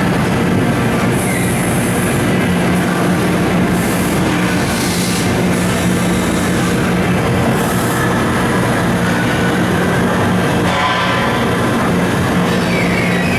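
Mori Seiki SH-630 CNC horizontal machining center running under power: a steady hum with dense machine noise, and short bursts of high hiss several times.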